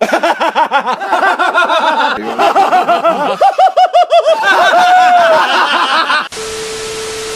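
High-pitched snickering laughter, a long fast run of short rising-and-falling giggles. About six seconds in it cuts to a steady tone over hiss.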